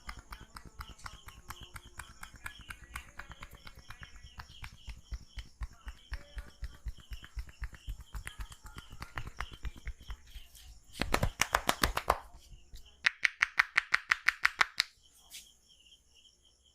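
Hands slapping and tapping on a head and neck during an oil massage: a long patter of quick light slaps, then a fast loud flurry about eleven seconds in and a run of evenly spaced, louder claps near the end. A repeated high chirp sounds in the background.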